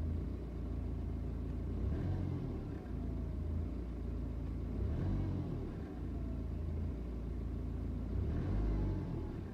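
BMW 320d's N47 four-cylinder diesel idling unevenly: under a steady low rumble, the engine note rises and falls in a slow swell about every three seconds, three times. The owner calls this an idle misfire, with the revs jumping as they come back down.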